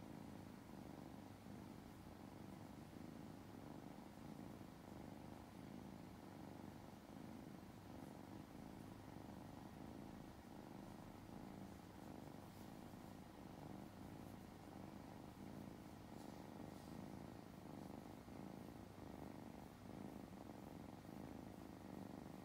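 Russian blue kitten purring softly and steadily while its paws are being massaged: a continuous low, fast-pulsing rumble.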